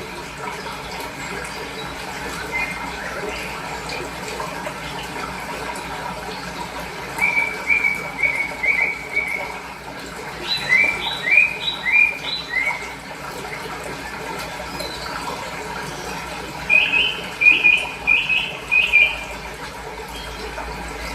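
Steady rush of running water, with small birds chirping over it in three bouts of quick repeated high notes.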